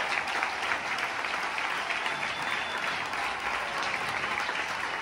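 Large stadium crowd applauding steadily, a dense even clatter of many hands.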